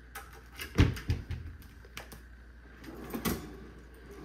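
A wooden kitchen cabinet door and a cutlery drawer being opened by hand: a string of knocks and clicks, the loudest a dull thump about a second in and another sharp knock near the three-second mark.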